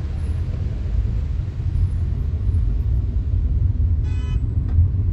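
Steady low rumble of a car driving on the highway, heard from inside the cabin. A short horn toot sounds about four seconds in.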